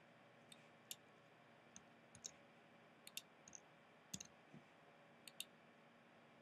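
Faint computer mouse clicks, about a dozen spread over the few seconds, some in quick pairs.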